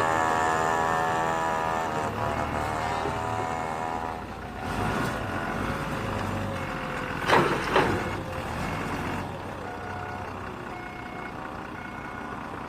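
Doosan 4.5-ton diesel forklift engine running, revved high at first and then settling lower. Reverse-alarm beeps come and go, and two short, loud bursts of noise come just past the middle.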